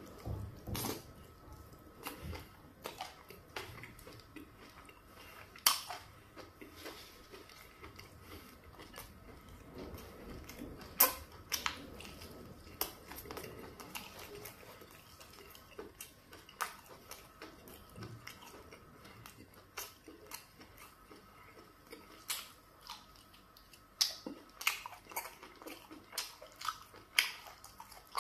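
A person chewing and biting into soup-soaked meat, with wet smacking mouth clicks; the sharpest smacks come about six and eleven seconds in.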